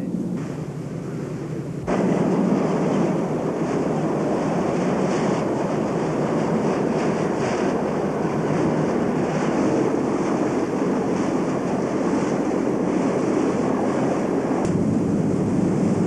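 Tour boat under way: engine running beneath a steady rush of water and wind on the microphone, which turns suddenly louder about two seconds in.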